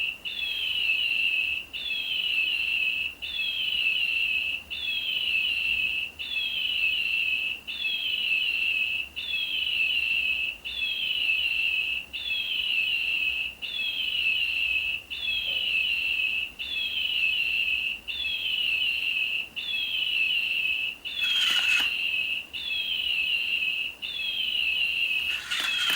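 Battery-powered toy bird's electronic chirping: a high, falling warble repeated about every one and a half seconds without variation. There is a brief rustle about three-quarters of the way through.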